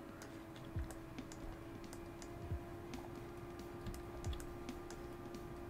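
Light, irregular clicks of a computer keyboard and mouse being worked, over a faint steady hum.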